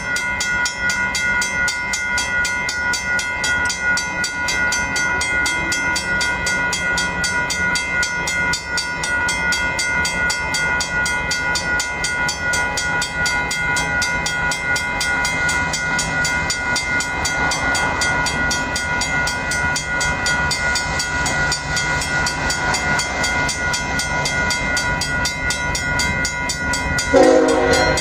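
Union Pacific diesel locomotives hauling an empty ballast train approach at speed, running steadily with a constant high-pitched whine over the engine and rail noise. A louder horn blast starts near the end.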